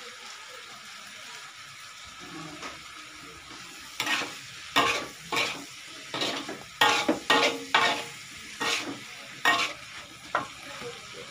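Metal spatula scraping and stirring chopped tomatoes and chilies in a wok over a steady sizzle of frying. A run of about ten scraping strokes starts about four seconds in.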